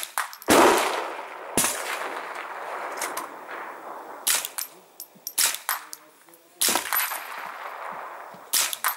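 Suppressed Ruger 10/22 Takedown .22 rimfire rifle firing a string of shots: sharp cracks a second or more apart, the loudest two trailing off into a long echo.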